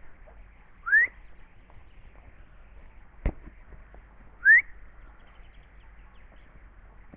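A person whistles twice, each a short rising whistle, loud and close, about three and a half seconds apart. A single sharp knock falls between the two whistles.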